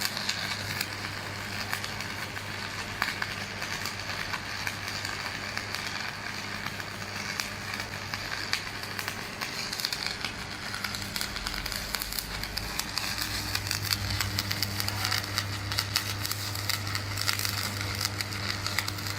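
Electric arc welding: a continuous, steady crackle of the arc over a low electrical hum from the welding machine, the hum growing stronger about two-thirds of the way through.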